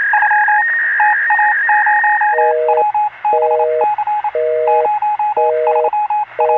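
Telephone tones with the thin sound of a phone line: quick repeated beeps and a steady high tone. From about two seconds in comes a North American busy signal, a low two-note tone sounding half a second on and half a second off.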